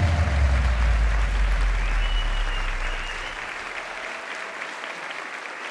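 Crowd applause, fading out over about three seconds.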